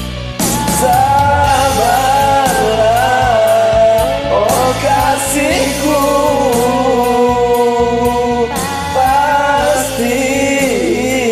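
Music: a Malay pop song with a sung melody over a steady beat.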